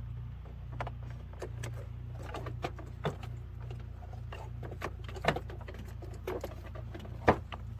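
Scattered clicks, rattles and knocks from handling a pickup's interior door panel while feeding its wiring through, the sharpest knock about seven seconds in, over a steady low hum.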